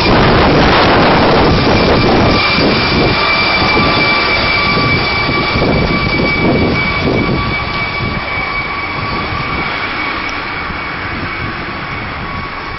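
MD900 Explorer twin-turbine NOTAR helicopter passing overhead and flying away: a steady turbine whine over rotor noise, growing steadily fainter.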